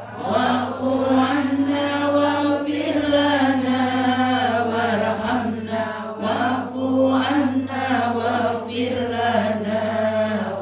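A woman chanting a tahlil supplication (du'a) into a microphone, amplified through a loudspeaker, in long held melodic phrases. A steady low hum runs underneath.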